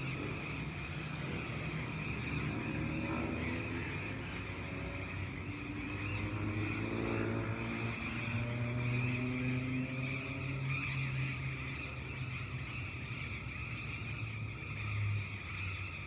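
A motor vehicle's engine running in the distance, its pitch rising more than once as it accelerates, over a steady chorus of birds.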